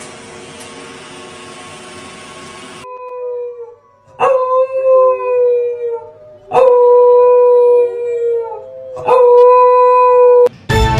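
A dog howling: three long, loud howls of steady pitch, each about two seconds, following a few seconds of low steady hum.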